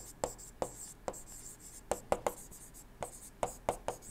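Stylus writing on a tablet: about ten light, irregular taps with a faint scratch as the pen strokes the letters.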